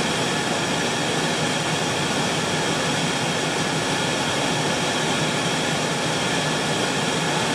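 Steady cabin noise inside a car: an even rush of air from the air-conditioning blower over the engine's low hum, with no change throughout.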